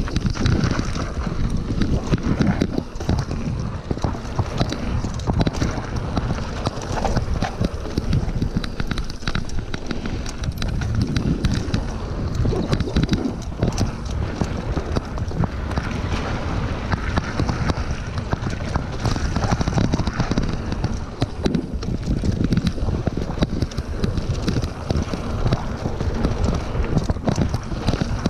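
Wind buffeting the camera microphone as a mountain bike rolls fast down a dirt trail, with the tyres running over loose dirt and a continual scatter of small knocks and rattles from the bike over bumps.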